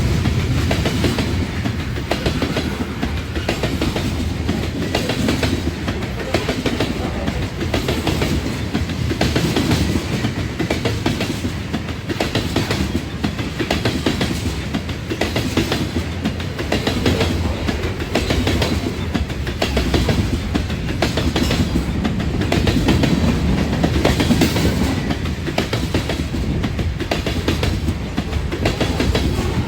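A train's cars rolling steadily past, wheels clacking rhythmically over the rail joints, over a continuous rumble.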